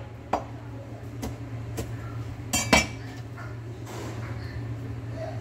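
A few sharp knocks and clinks of a Chinese cleaver against a wooden chopping board while cutting garlic cloves, the loudest pair about two and a half seconds in. A low steady hum runs underneath.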